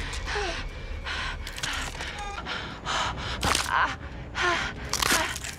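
A young woman gasping and crying out in pain, in a string of short, breathy gasps with brief strained vocal cries between them.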